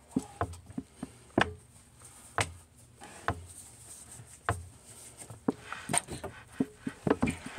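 Irregular clicks, knocks and rustling as a white glove is pulled onto a hand, with the arm bumping against the table and phone.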